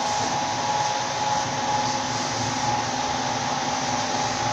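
Oscillating electric stand fan running close by: a steady whooshing hum with a faint steady motor tone.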